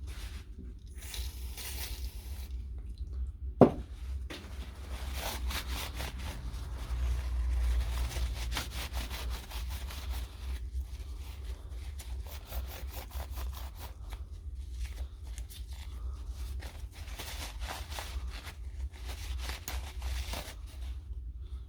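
Irregular scraping and rubbing of hands and tools on the impact wrench's motor parts during cleaning, with one sharp knock about three and a half seconds in.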